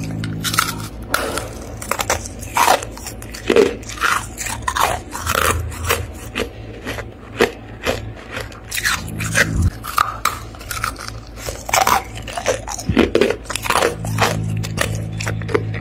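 Hard freezer frost being crunched and scraped by hand, a dense run of irregular crisp crunches.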